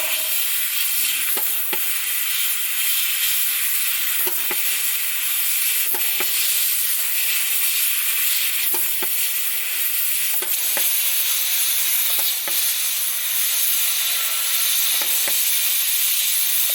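CNC fiber laser cutting steel plate: a steady hiss from the gas jet and cut, with scattered faint ticks.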